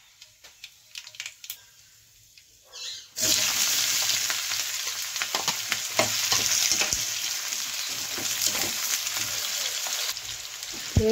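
Cubed tindsi (round gourd) and green chillies sizzling loudly in hot oil. The sizzle breaks out suddenly about three seconds in, after a few faint ticks, while a steel spatula stirs and scrapes the pan. It eases slightly near the end.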